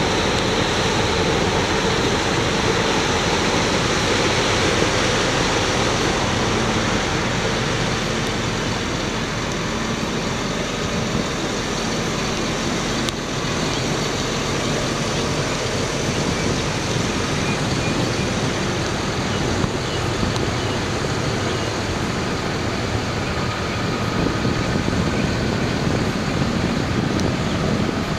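Caterpillar 535D skidder's diesel engine idling steadily.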